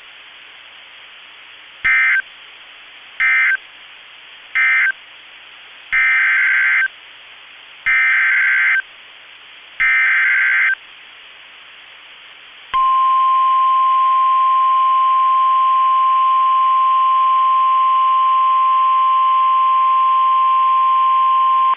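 NOAA Weather Radio SAME digital data bursts and warning alarm tone. Three short buzzing data bursts mark the end of one warning, then three longer bursts of about a second each carry the header of the next warning, then the steady 1050 Hz alert tone sounds for about nine seconds, over faint radio hiss.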